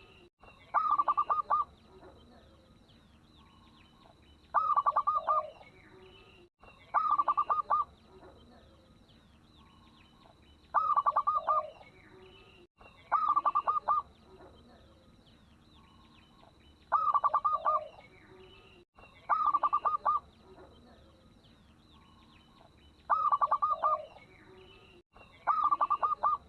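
Zebra dove (perkutut) cooing: short phrases of quick, staccato notes, repeated about nine times every two to four seconds, often in pairs.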